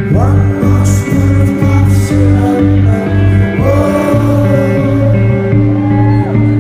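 Rock band playing loudly live: a heavy repeating bass line, sustained guitar tones, and a singer's voice gliding up near the start and again about halfway through.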